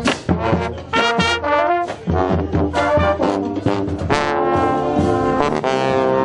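Brass band playing: trombones and trumpets sounding a tune over a regular drum beat.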